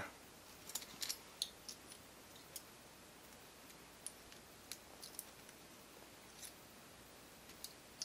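Faint, scattered small metallic clicks of tweezers handling a lock's tiny pins and springs against the lock body, a few irregular ticks every second or so.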